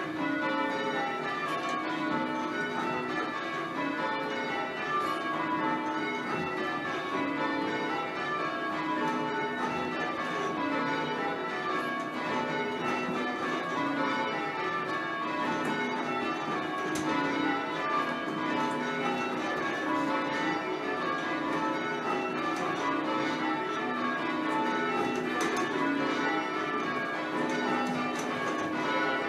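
Ring of full-circle church tower bells, tenor about 381 kg, striking one after another in repeated descending rounds as the band rings them down in peal.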